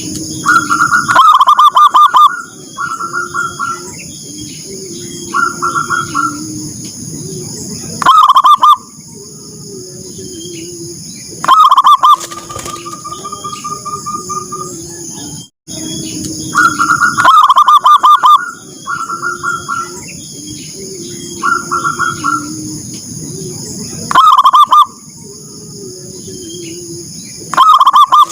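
Zebra doves (perkutut) calling: loud, rapidly pulsed cooing phrases come every few seconds over softer, lower coos, with a steady high-pitched hiss behind. The same sequence repeats about every 15 seconds, as from a looped recording.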